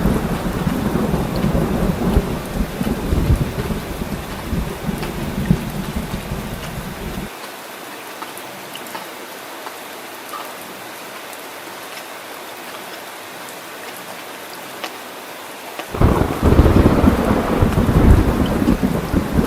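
Heavy rain falling steadily with low rolling thunder. The thunder drops out abruptly about seven seconds in, leaving only the hiss of rain, and comes back just as suddenly near the end.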